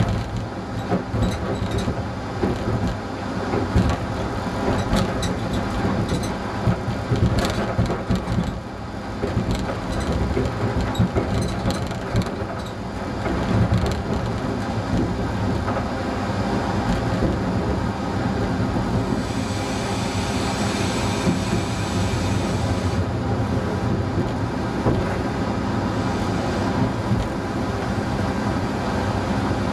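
ČD class 854 diesel railcar heard from its driver's cab: the diesel engine running steadily while the wheels click over points and rail joints, the clicking busiest in the first half. A hiss rises for a few seconds about two-thirds through.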